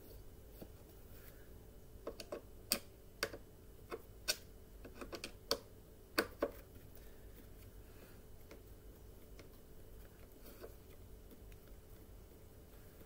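Sharp, irregular clicks and taps, about a dozen over four seconds, from hands working on a Bissell PowerForce Bagless upright vacuum's plastic body during reassembly.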